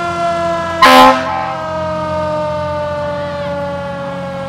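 Fire engine siren sounding one long wail whose pitch slowly falls, with a short, loud air-horn blast about a second in, over the truck's engine running.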